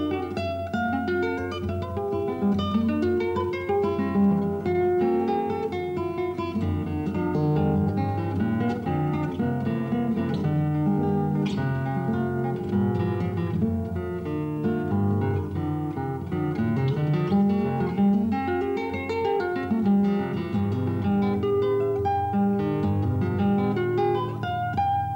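Acoustic guitar played fingerstyle: a continuous run of quick plucked notes over a moving bass line.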